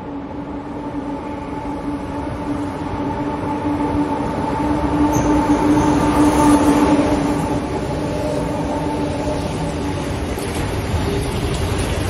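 Electric locomotive hauling a freight train of car-carrier wagons through a station. A steady hum grows louder as the locomotive approaches and passes about six seconds in, then fades into the even rolling rumble of the wagons going by.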